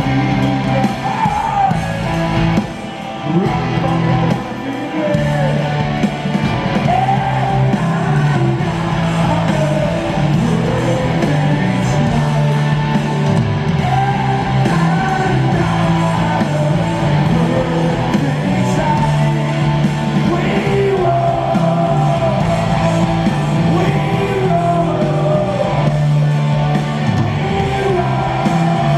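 Rock band playing live at full volume, with electric guitars, bass and drums under a singer's yelled vocals.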